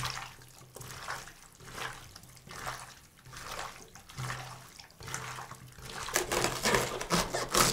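Hands mixing raw chicken pieces with onion, spices and adjika in a clay bowl: wet mixing strokes about once a second, louder and busier near the end.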